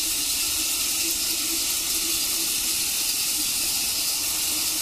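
A steady, even hiss with a faint wavering hum beneath it.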